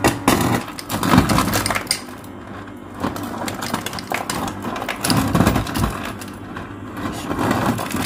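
Refrigerator door ice dispenser set to crushed ice, dropping chunks of ice into a glass: the ice clatters and clinks against the glass in several bursts, with quieter pauses between.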